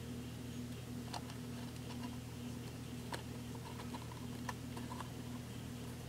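A few faint, scattered clicks and taps of fingers pressing a glued cardstock piece onto a paper craft house, over a steady low background hum.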